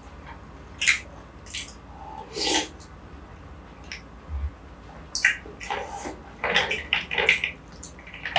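Close-up slurping and wet mouth sounds of someone eating shwe yin aye, a Burmese coconut-milk dessert with jelly strands and bread, from a spoon. There are a few separate slurps at first, then a quick run of slurps and chewing noises about five to seven and a half seconds in.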